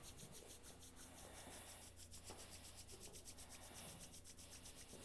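Faint rubbing of chalked hands together: a long, quick run of soft, even scrapes.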